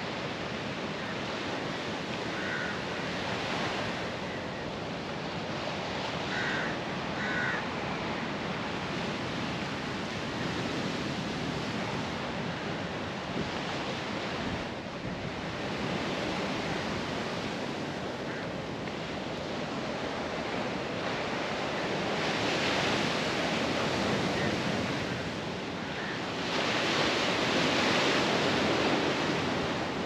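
Sea surf breaking and washing over shore rocks, a steady wash with two louder surges in the last third. A few short bird calls come a few seconds in.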